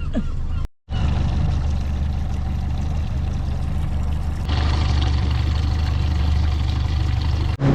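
Small fishing boat's inboard engine running steadily under way, a low even hum with the rush of wind and water over it. It cuts out for an instant about a second in and comes back louder with more hiss from about halfway.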